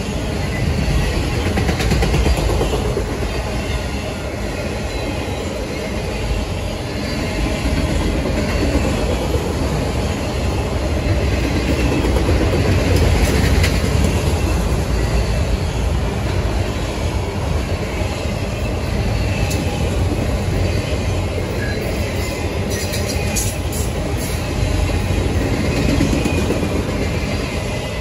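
Autorack freight cars rolling past close by: a steady, loud rumble of steel wheels on the rails.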